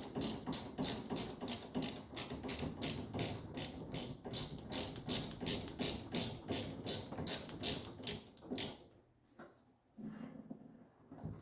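A metal hand tool working the steering-column knuckle pinch bolt. It makes a rapid, even run of sharp metallic clicks, about four or five a second, which stops about nine seconds in, then a few scattered knocks.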